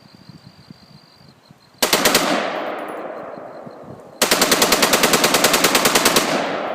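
AR-15 rifle bump-fired with a slide-fire stock: a short string of rapid shots about two seconds in, then a longer burst of about two seconds at around ten shots a second, each string trailing off in a long echo.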